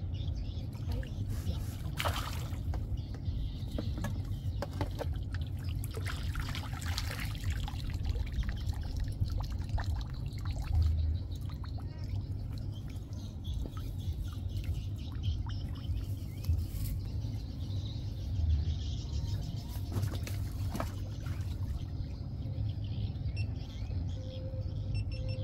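Water splashing and trickling as a hooked fish thrashes at the surface and is lifted out in a landing net, in irregular bursts over a steady low rumble.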